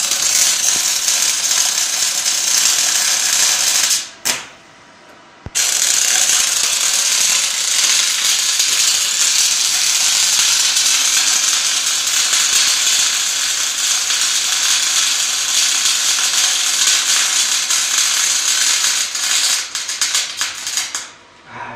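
MIG welding arc from a 250-amp MIG welder, crackling steadily in two runs: about four seconds, a pause of about a second and a half, then about fifteen seconds that break up into short bursts near the end.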